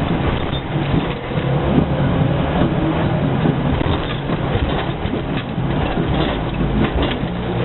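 An off-road vehicle's engine running under way, with scattered knocks and rattles.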